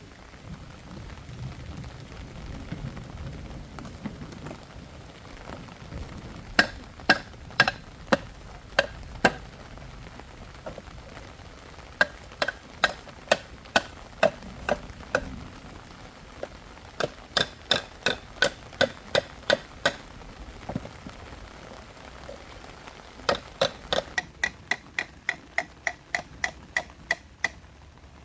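Sharp wooden knocks in bursts of several strikes, typical of chopping or hammering. The strikes come about two a second at first and quicken near the end to an even run of about three a second, over a faint patter of rain.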